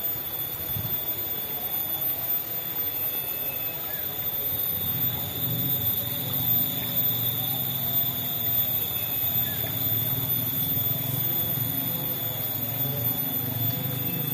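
Forest insects droning at a steady high pitch, with a low rumble coming in about five seconds in and a few faint bird chirps.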